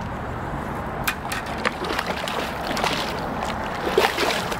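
Hooked rainbow trout thrashing at the surface close to the bank, splashing and sloshing the water, over a steady noisy background with scattered sharp ticks that come more often near the end.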